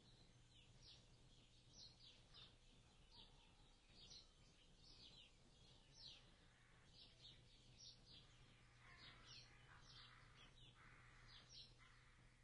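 Faint bird chirping: many short, high chirps, each falling in pitch, at about two a second.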